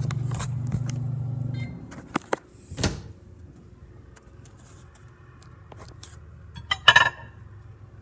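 Microwave oven humming, then stopping about a second and a half in, followed by a few sharp clicks and a clunk. Near the end, a short clatter of dish or glass clinking.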